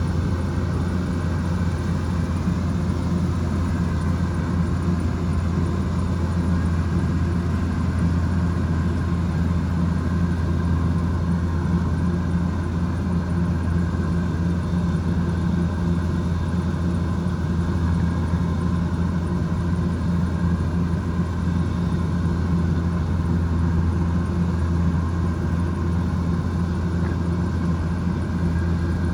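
Kubota DC105X combine harvester's diesel engine running steadily at a constant speed, with the clatter and whir of its harvesting machinery.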